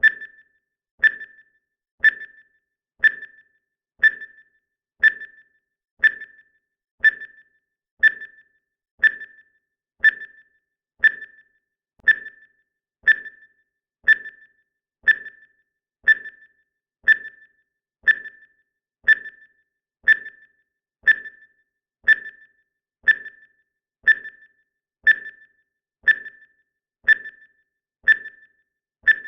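A countdown timer's sound effect: a short, high electronic ping once every second, each fading quickly, marking off the seconds.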